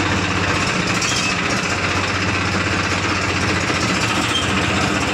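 Tractor diesel engine running steadily at idle.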